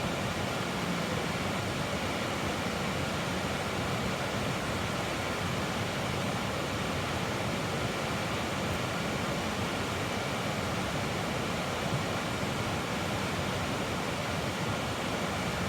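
Creek water rushing steadily, an even wash of noise with no distinct events.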